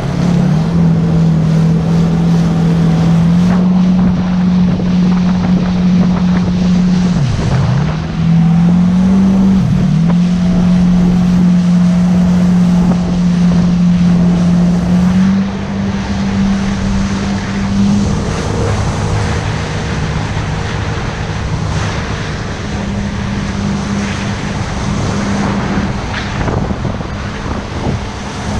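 Yamaha personal watercraft (jet ski) engine running at speed, a steady drone that dips briefly and picks up again twice a quarter to a third of the way in, then settles a little lower and quieter from about halfway. The engine runs over wind buffeting the microphone and rushing water.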